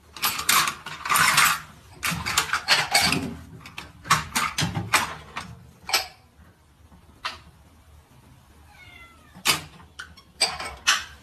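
A cat meowing while things knock and clatter repeatedly around it as it climbs about in a kitchen cabinet. The clatter is dense for the first few seconds, then comes in scattered knocks.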